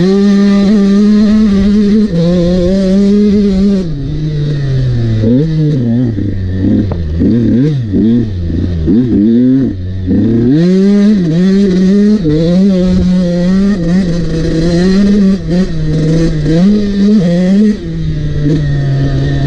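Husqvarna motocross bike engine revving up and down over and over, close-up from on the bike. Long pulls end in sudden drops as the rider rolls off the throttle and shifts, with a run of quick throttle blips in the middle.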